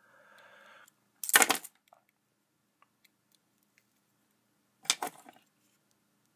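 Two short bursts of clicking clatter, about a second in and again about five seconds in: a folding metal utility knife being handled and then set down on the tabletop.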